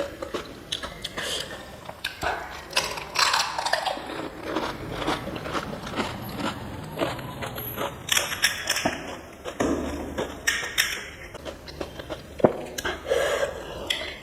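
Close-up crunching and chewing of crisp panipuri shells: a dense run of irregular sharp cracks and crackles.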